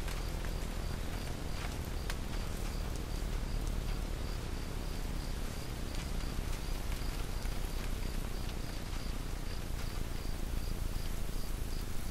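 Crickets chirping steadily, a short high chirp repeating about three times a second, over steady low background noise.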